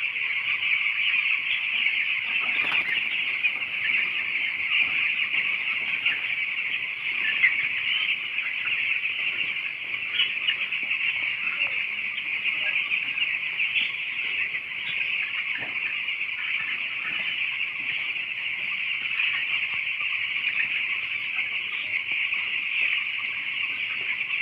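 A large flock of broiler chicks peeping continuously, a dense, steady chorus of high cheeps.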